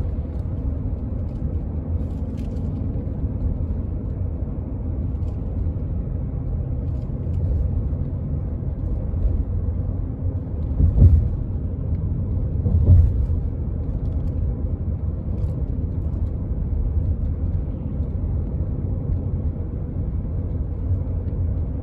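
Road and engine noise heard from inside a moving car: a steady low rumble, with two brief louder swells about halfway through.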